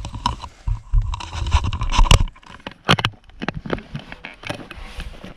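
A cow shifting and stamping in a metal head gate while her hind foot is being lifted: a run of knocks and rattles over low rumbling, with sharp clanks about two and three seconds in.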